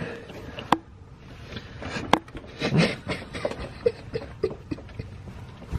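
Close-up chewing and lip-smacking of a man eating a snack, wet mouth noises coming in short bursts, with a couple of sharp clicks.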